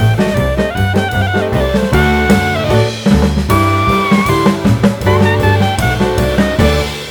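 Background music: an upbeat jazzy instrumental with drum kit, bass and a horn melody.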